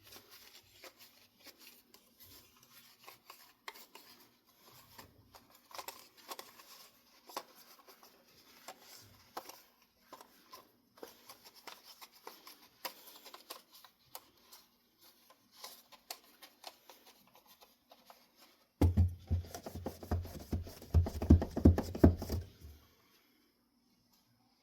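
Small clicks and light rubbing of parts being handled by hand. Near the end come about four seconds of much louder, close rubbing and knocking, which cut off abruptly.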